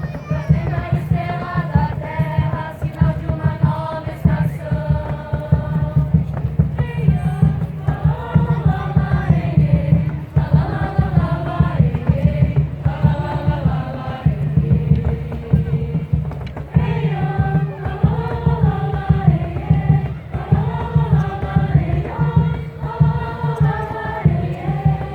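A group of voices singing a slow song together in unison, phrase after phrase, over a continuous low rumble.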